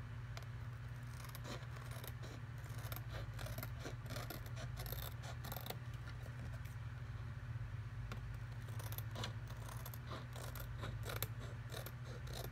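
Scissors snipping along the edge of a laminated paper divider, trimming away the laminating-pouch plastic: a run of short crisp cuts, a pause, then another run, over a steady low hum.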